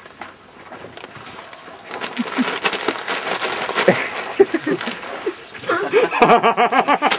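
Voices of a group of people, ending in a run of quick, rhythmic laughter in the last second and a half, with scattered clicks and rustles beneath.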